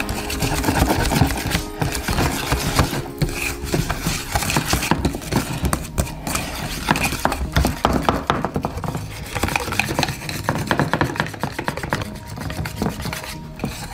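Wire whisk beating a powdered-sugar-and-water glaze in a bowl: rapid, continuous clicking and scraping of the wires against the bowl.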